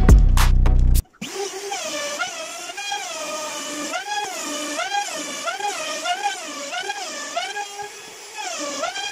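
Music with a beat, which cuts off about a second in. Then a handheld trim router runs while cutting a groove along a straightedge into a door board. Its motor whine rises and falls over and over, about twice a second.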